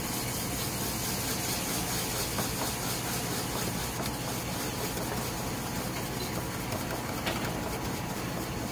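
Scrub brush scouring a stainless steel saucepan through a gritty paste of baking soda and cleaner, a steady scrubbing hiss, working at baked-on residue.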